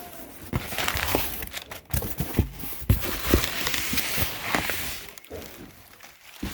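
Packaging crinkling and rustling, with sharp clicks and knocks, as parts are handled and unpacked from their box. It quiets down near the end.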